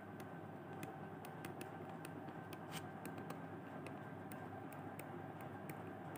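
Faint, irregular light clicks of a stylus tapping on a tablet screen during handwriting, over a low steady hum.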